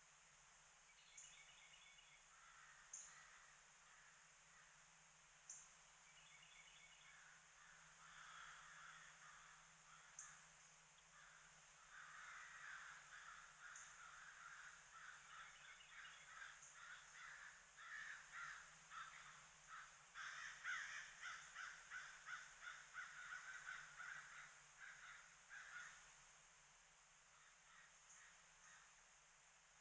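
Faint outdoor birdsong ambience: crows cawing over and over, busiest through the middle of the stretch, with short high chirps and quick trills from smaller birds over a faint steady high hiss of insects.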